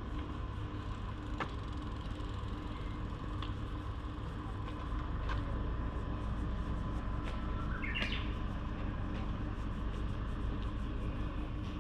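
A steady low rumble that grows slightly louder about halfway through, with a short chirp rising in pitch about eight seconds in.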